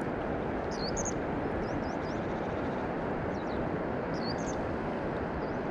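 A steady low rushing noise of flowing river water and wind, with a small bird giving short high chirps several times.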